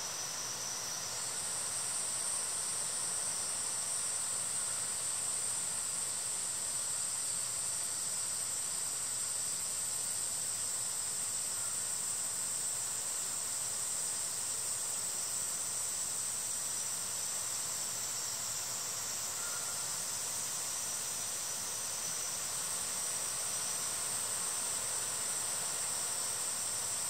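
Steady high-pitched hiss that gets a little louder about a second in.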